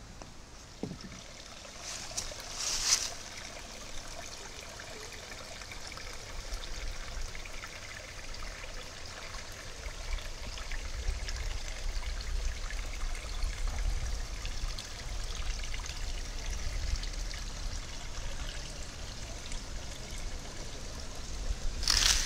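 Running water of a small stream trickling and splashing steadily, with a low rumble joining about halfway through and brief louder rushes of noise near the start and at the end.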